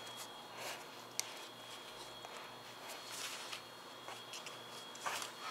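Faint rubbing and scraping of a stiff 10-inch rubber scooter tire being worked over the rim of an electric scooter's hub-motor wheel, with one sharp click about a second in.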